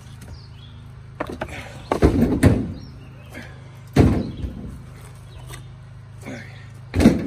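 Split firewood pieces being thrown onto a load, knocking against other wood: about five separate thuds at irregular intervals, over a steady low hum.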